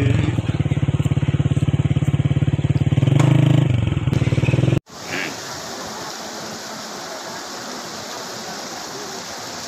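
An engine running steadily, with a swell in its sound about three seconds in. It cuts off abruptly just before halfway, and the steady rush of floodwater pouring across a flooded field takes over.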